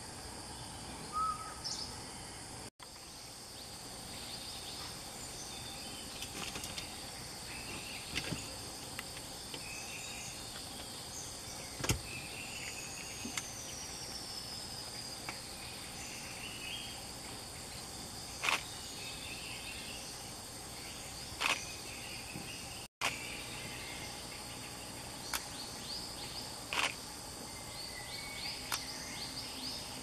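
Outdoor field ambience: a steady insect drone with scattered small-bird chirps and one falling whistle. A few sharp clicks stand out, and the sound drops out for an instant twice.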